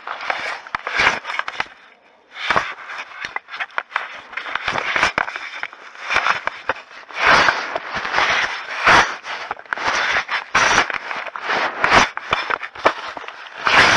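A black bear cub handling a trail camera up close: irregular scraping and rubbing against the camera housing, with many sharp knocks and clicks.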